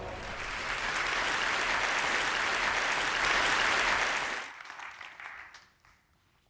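Large audience applauding, then dying away with a few last scattered claps about four and a half to six seconds in.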